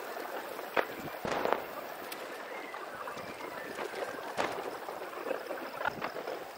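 Fireworks display played back fast-forwarded: a continuous crackling hiss broken by several short sharp cracks, about a second in, at a second and a half, and again near four and a half seconds.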